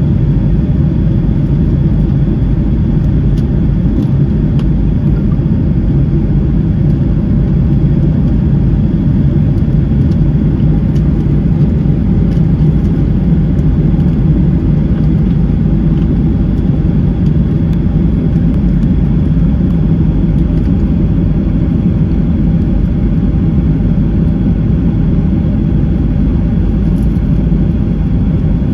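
Airliner cabin noise in flight: a steady, loud low rumble of jet engines and airflow heard from inside the passenger cabin.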